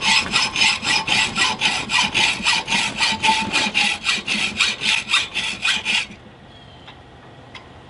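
Hand saw cutting through a small marked screw in fast back-and-forth strokes, about four a second, with a faint metallic ring. The sawing stops about six seconds in.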